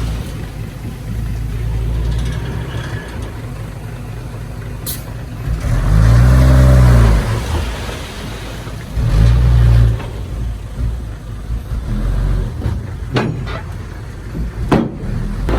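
Heavy diesel earthmoving machinery running steadily, with the engine surging loudly under load twice, about six and nine seconds in, and a couple of sharp knocks near the end.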